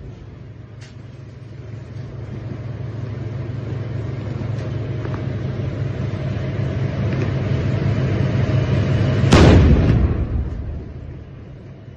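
Tank engine running with a low rumble that slowly grows louder as the tank moves close by, then one very loud tank gun shot about nine seconds in, dying away over about a second.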